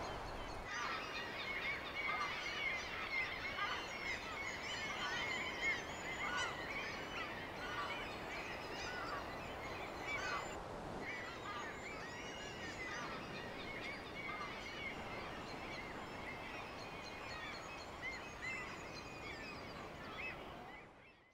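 Many seabirds calling over one another: a dense, faint chorus of short arched calls that fades out at the end.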